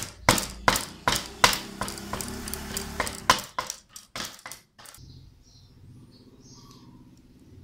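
Knife chopping pork on a round wooden chopping block: about a dozen sharp, uneven strokes over the first five seconds. The chopping then stops, leaving only faint background sound.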